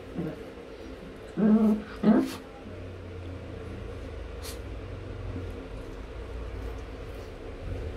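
Chihuahua puppy growling while being petted, with two short, louder growly outbursts about a second and a half and two seconds in, then a low steady rumble: the puppy is annoyed at being handled.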